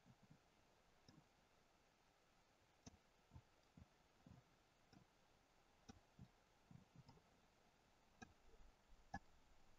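Near silence broken by faint, irregular clicks, roughly one or two a second, from the computer input used to work the sculpting program; one slightly louder click comes near the end.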